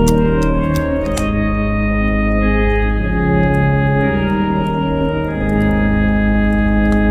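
Aeolian-Skinner virtual pipe organ playing a hymn in slow, sustained chords over deep pedal bass, the chords changing every second or two. A few sharp clicks sound within the first second or so.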